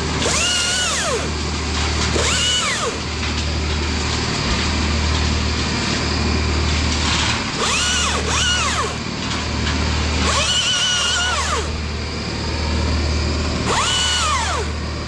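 Chainsaw revved up in about six short bursts, each climbing quickly to full speed, held briefly and dropped back, over a steady low engine drone.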